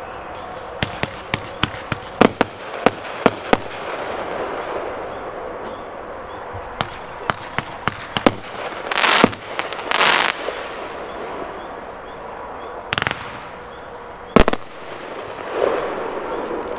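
A 500-gram 34-shot firework cake firing. There is a quick string of sharp reports in the first few seconds, more shots about seven to eight seconds in, and two loud crackling bursts around nine and ten seconds. Another burst follows near thirteen seconds, then a single loud bang.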